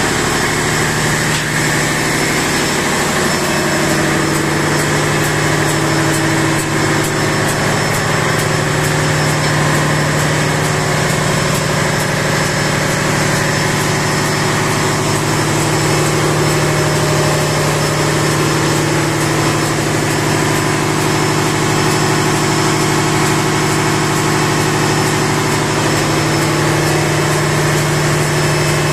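Steady, loud drone of running machinery in a ship's engine room, with a constant low hum and no change throughout.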